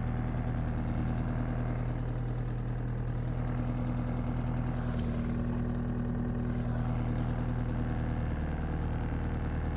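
Skoda diesel engine running steadily with the throttle held just above idle. It cuts out whenever the throttle is released, a fault that remains after the rebuild.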